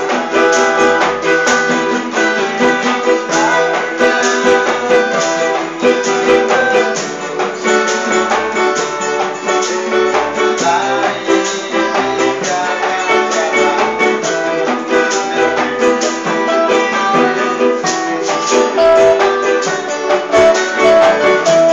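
A band playing a song led by guitars, strummed over a steady beat with low bass notes.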